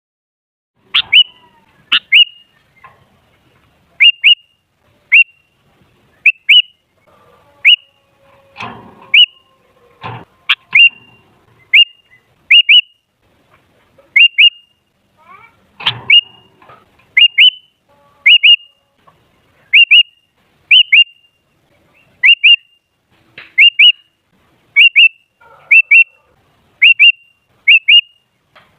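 Sooty-headed bulbul (kutilang) giving short, sharp call notes, often in quick pairs, about once a second. Each note drops quickly in pitch. A few dull thumps come in around a third of the way through and again just past halfway.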